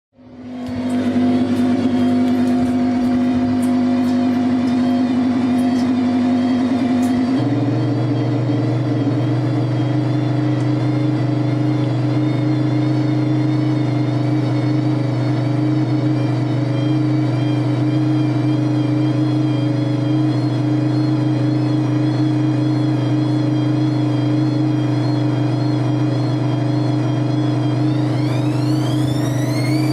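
Washing machine running with a steady motor hum and whine. About seven seconds in the hum shifts to a lower, fuller tone, and near the end a whine rises in pitch as the machine speeds up.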